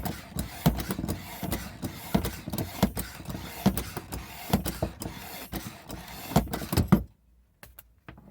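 Bicycle pump being worked by hand to inflate a patched inner tube, a steady stroke with a rush of air about every three-quarters of a second, stopping suddenly about seven seconds in.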